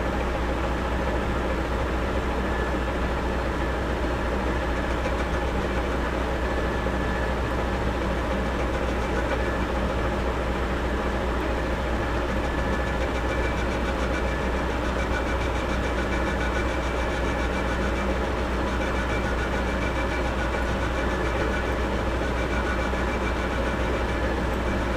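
Metal lathe running steadily with its spindle turning at about 381 rpm: an even machine hum with a few steady whining tones above it, unchanging throughout.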